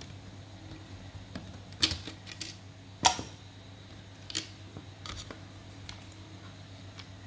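Sharp plastic clicks and taps from the opened hand mixer's housing and internal parts being handled: a handful of separate clicks, the loudest about three seconds in, over a low steady hum.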